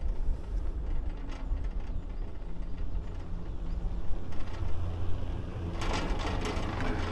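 Doppelmayr detachable six-seater chairlift riding the haul rope with a steady low rumble, then a rattling clatter near the end as the chair's grip rolls over the support tower's sheave train.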